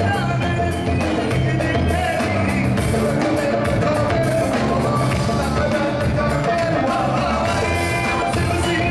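Live raï song: a male lead vocalist singing over a full electric band, with drum kit keeping a steady beat and electric bass underneath.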